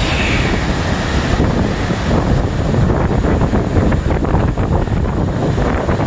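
Steady roar of Yosemite Falls running at high snowmelt flow, with wind buffeting the microphone.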